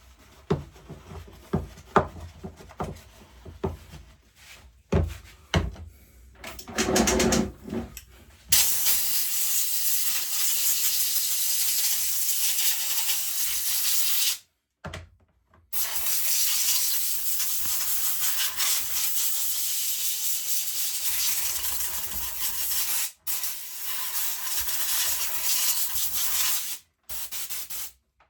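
A few knocks and clicks of parts being handled, then loud, steady hissing of a pressurised jet blasting over mower engine parts to clean them, in long bursts with brief breaks.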